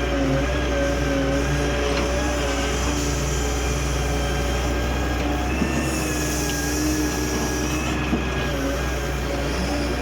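Diesel engine of a 2000-model Doosan excavator running steadily under work, a constant low hum with a slightly wavering whine over it. Two brief knocks come in the second half.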